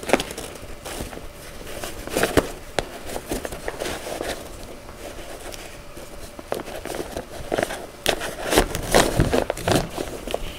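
Fabric cover and strap webbing rustling and rubbing as a changing-pad strap is threaded through a slot in the cover, with scattered small clicks and knocks from handling.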